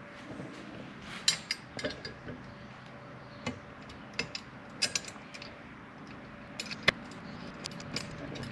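Scattered light metallic clicks and clinks, a dozen or so at uneven intervals, as small screws and washers are handled and hand-tightened to fit the luggage rack onto the sissy bar.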